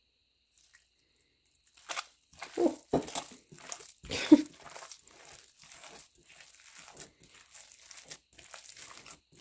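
A hand squeezing and squishing raw ground beef and turkey meatball mixture in a glass bowl, wet with just-added beef broth. Starting about two seconds in, a few loud wet squelches, then softer squishes about twice a second.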